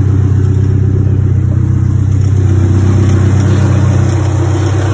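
Porsche 944's inline-four engine idling steadily.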